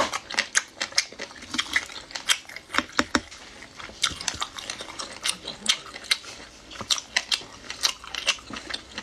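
Close-up eating sounds: sharp wet clicks and smacks of chewing and sucking on sauced shellfish, coming irregularly, two or three a second.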